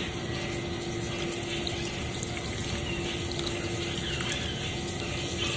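Lime soda (Mountain Dew) being poured in a steady stream into a metal wok over two mud crabs, splashing without a break.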